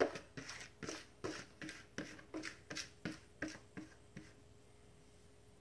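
Light taps and knocks, about three a second, as a hand scrapes and taps shredded cooked chicken out of a plastic mixing bowl into a casserole dish. They stop about four seconds in.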